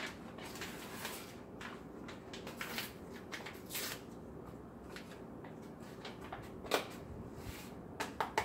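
Chili-seasoning packet crinkling and tearing as it is opened by hand and shaken out over the pot, a string of short scratchy rustles.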